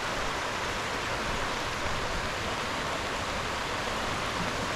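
Swollen creek in flood after heavy rain: a steady, loud rush of fast-flowing water.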